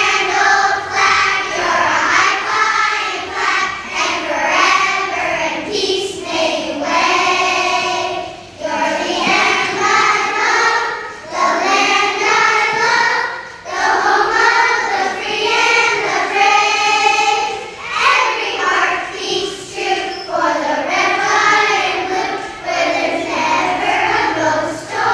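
A children's choir of first graders singing a song together, in phrases with short breaks between them.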